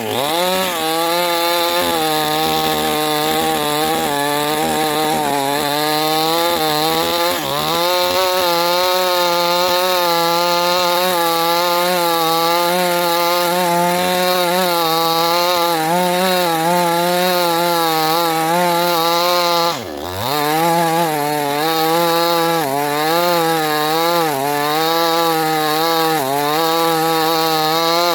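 Chainsaw engine running at high revs while cutting wood, its pitch wavering as the load changes. About two-thirds of the way through it bogs down sharply and revs back up.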